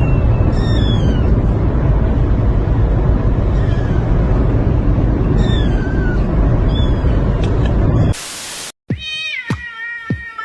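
Kitten mewing over and over, short high falling cries about every second and a half, over a loud low rumble. Near the end a brief burst of hiss cuts it off, and music with a beat begins.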